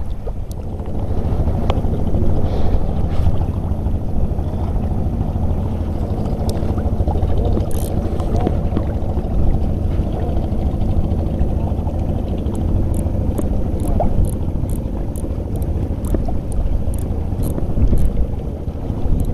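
Wind buffeting the microphone over choppy sea water, a steady low rumble. In the last third comes a run of light, regular ticks, about three a second.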